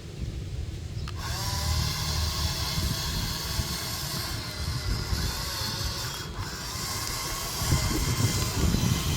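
Small electric motor and gears of a toy excavator whirring, starting suddenly about a second in over a low rumble.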